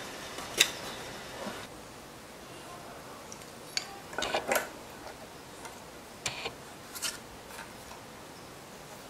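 Hand tools being handled on oak boards: a steel combination square and pencil set down and slid into place, giving a few light metallic clicks and taps. There is one sharper knock about half a second in, and a cluster of clicks around the middle.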